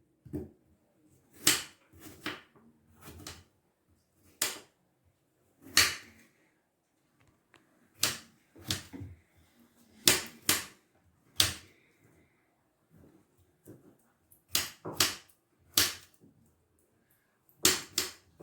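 Knife cutting an apple on a cutting board: sharp knocks at irregular intervals, roughly one a second, with a few short pauses.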